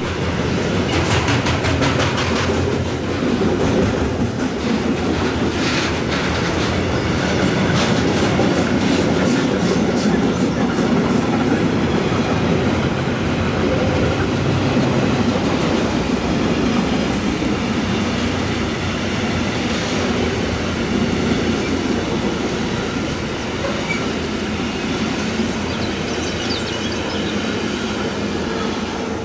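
Freight train rolling past, its wagon wheels clattering over the rails in a steady run of clicks.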